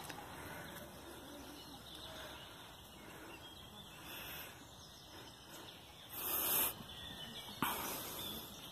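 Outdoor park ambience with faint birdsong over a steady background hiss, broken by a brief loud hiss about six seconds in.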